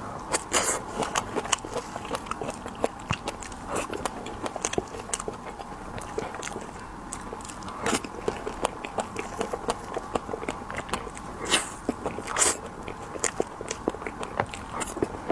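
Close-up eating sounds of candied hawthorn (tanghulu): the hard sugar shell cracking between the teeth in irregular crisp clicks while the fruit is chewed, with a few louder crunches.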